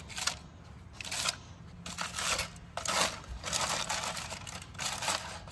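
Aluminium foil liner crinkling and crumpling as it is pulled and balled up out of a turkey fryer's drip tray, in a series of short rustling bursts.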